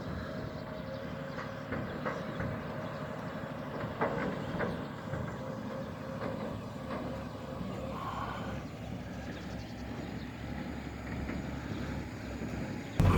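A car driving along a road: a steady low rumble of engine and tyres, with a few light knocks about two and four seconds in.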